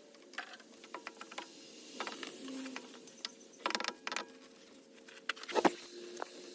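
Metal hand tools clicking and clinking on an alternator mounting bolt in a truck's engine bay: scattered light clicks, a quick run of clicks a little past the middle, and a sharper metal knock near the end.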